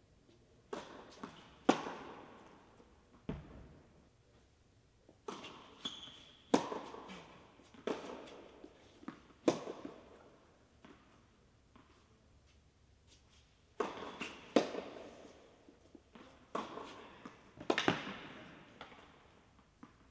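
A tennis ball struck by rackets and bouncing on an indoor hard court through several rallies: sharp pops in irregular groups, each ringing on in the echoing hall.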